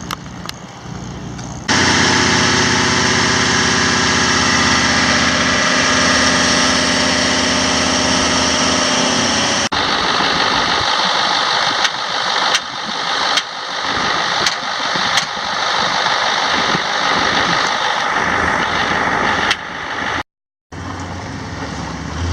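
Semi truck's diesel engine running steadily and loudly, starting abruptly about two seconds in and cutting off suddenly near the middle. After it comes a lower rumble with scattered sharp clicks and knocks.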